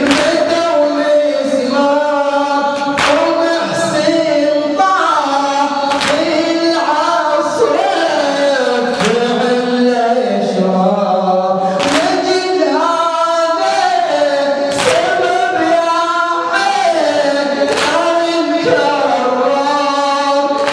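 Shia mourning latmiya chant: a group of male voices singing a slow melody in unison, with a sharp beat about every three seconds.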